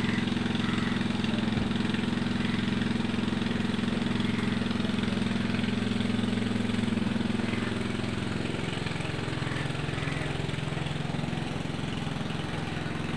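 A steady, low engine hum, like an engine idling, whose tone shifts slightly about nine seconds in.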